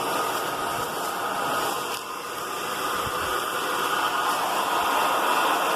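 Hair dryer blowing steadily on its high setting, a loud even rush of air with a faint motor whine, used to heat-shrink a plastic sleeve onto a TV remote.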